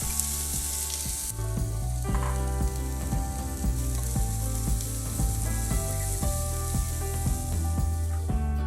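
Diced onions sizzling in hot bacon fat in a pot, loud for the first second or so, then a quieter, steady sizzle. Background music with a steady beat plays underneath.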